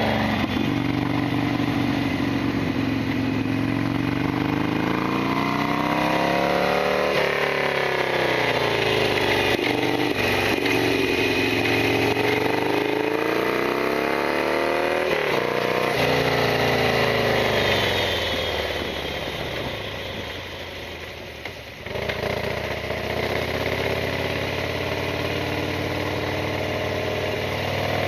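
Harley-Davidson Sportster XL1200R V-twin engine running on the move, its pitch rising and falling several times with throttle and gear changes. Near the end it drops off and quietens for a few seconds, with a sharp click, then picks up again and runs steadily.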